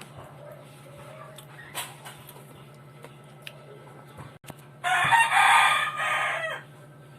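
A rooster crows once, loudly, about five seconds in; the crow lasts under two seconds.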